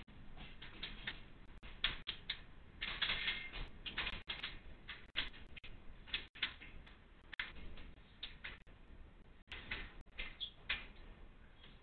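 Faint, irregular clicking and clattering, several times a second, from a freight train pulled by two electric locomotives as it rolls slowly over the yard tracks.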